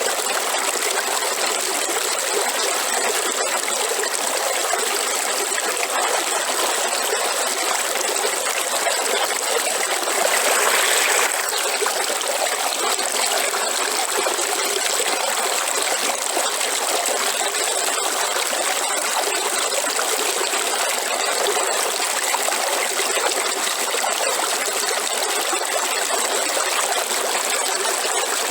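River water flowing and trickling, a steady rushing with a slight swell about ten seconds in.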